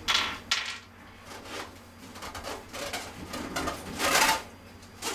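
Handling noises as the metal side panel of a computer case is unfastened and slid off: a few short scrapes and rattles, the loudest about four seconds in.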